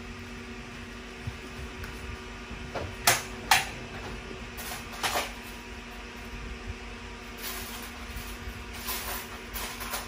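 A few sharp knocks and clinks of small metal hardware being handled while a screw is fetched, two loud ones close together about three seconds in and another about five seconds in, with softer clatter near the end, over a steady low hum.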